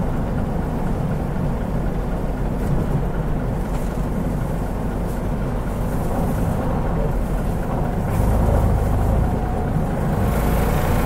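Mitsubishi Fuso Aero Star bus's turbocharged 6M70 diesel engine running, heard from inside the bus with steady road noise. The low rumble grows louder about eight seconds in, and a short hiss comes near the end.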